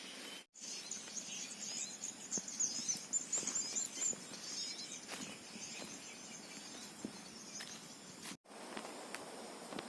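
Small birds twittering in rapid, high, wavering chirps in a forest. The chirps are busiest in the first few seconds and thin out after that, over faint scattered rustling and ticks.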